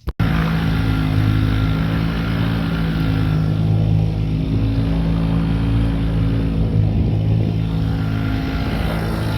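Engine running at a steady speed, a constant low hum with a rushing noise over it, starting abruptly.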